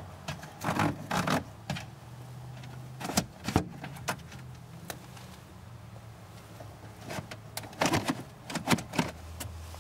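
Scattered clicks and knocks of plastic and metal parts being handled under a car's dashboard, coming in three small clusters over a low steady hum.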